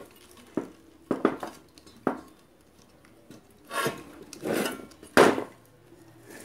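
Small hard clinks and knocks of metal tools and parts being handled on a workbench while a replacement capacitor is fitted into an ATX power supply's circuit board. About half a dozen separate sharp taps, the loudest about five seconds in.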